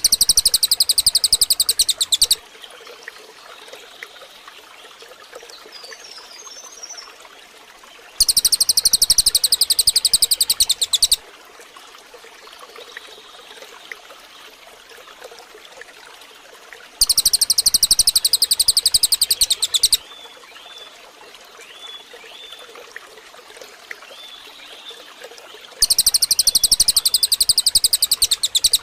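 Recorded songbird giving a rapid, evenly pulsed high-pitched trill about three seconds long, repeated four times about nine seconds apart. Running water and a few faint chirps sound in the gaps.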